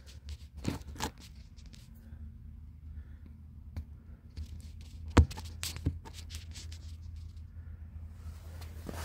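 Scrapes and knocks of a phone being handled, the loudest a sharp knock about five seconds in, over a low steady hum.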